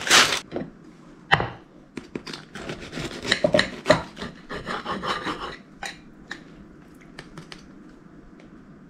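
Knife sawing and scraping through a freshly baked dish, a close run of rasping strokes in the middle, with a few light knocks before and after.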